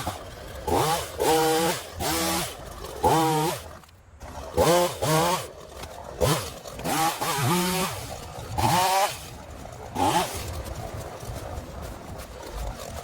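Ryobi 37cc two-stroke gas chainsaw being pull-started again and again: about ten quick yanks of the recoil starter cord, each a short whirring rattle, with the engine not catching.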